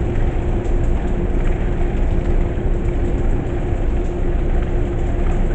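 Steady mechanical rumble and rush with a constant low hum running through it, outdoors in an urban alley.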